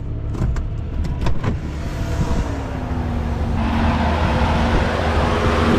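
A vehicle engine running steadily while driving, with a few sharp clanks in the first second and a half. A hiss swells in the second half.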